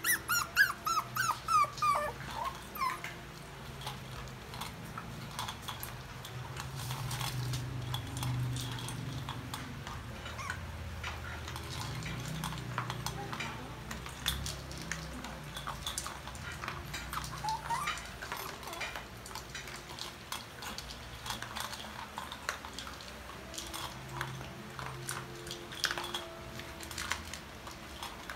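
Toy poodle puppies whining in a quick run of high, falling yelps over the first couple of seconds, then a long stretch of small clicks and crunches as poodles eat together from a metal bowl, with an occasional faint whimper.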